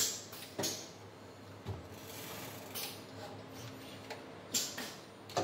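Pneumatics of a robotic gauging cell: about six short, sharp air hisses and clicks as the robot's air-operated gripper and the gauge's cylinders actuate to place and release an injector nozzle, over a faint steady machine hum.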